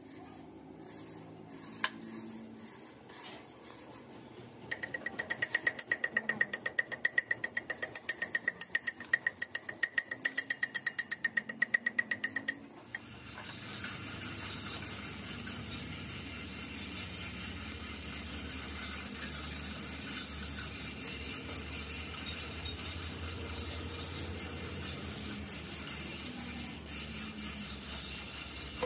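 Electric arc welding on a broken splined truck driveshaft. After a quiet start, about five seconds in the arc gives rapid, evenly spaced crackling pulses with a steady high tone for about eight seconds, then settles into a steady hiss with a low hum.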